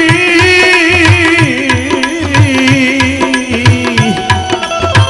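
Devotional bhajan music: a hand drum keeps a steady beat of about three strokes a second under a held melody line that steps down in pitch and breaks off about four seconds in.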